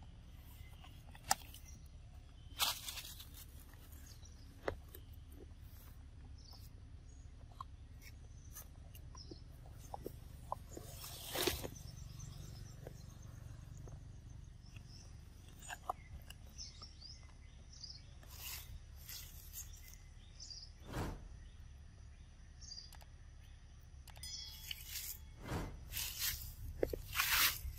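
Scattered short crackles and rustles over a steady low background noise, busier near the end: young long-tailed macaques handling an empty plastic bottle and moving about on dry leaf litter.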